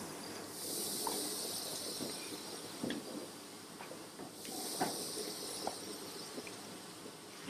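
Effervescent tablet fizzing in a cup of water: a steady high hiss of bubbles, with a few small knocks.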